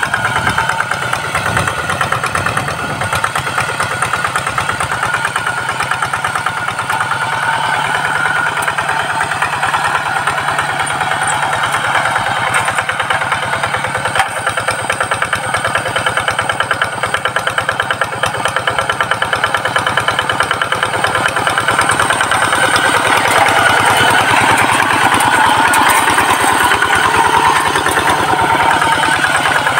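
Single-cylinder diesel engine of a two-wheel hand tractor running steadily under load with a fast, even chugging, as it drags a levelling board through tilled soil. It gets a little louder in the last third.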